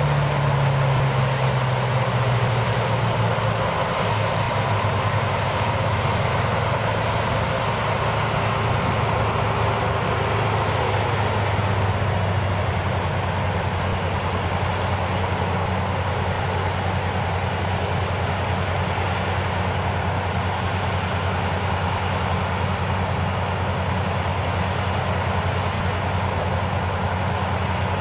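Palesse GS12 combine harvesters working: a steady drone of engines and threshing machinery, its low engine note falling slightly in the first few seconds, then holding even.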